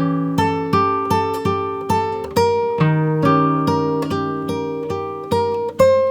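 Background music: acoustic guitar playing plucked notes, a new note or chord every half second or so.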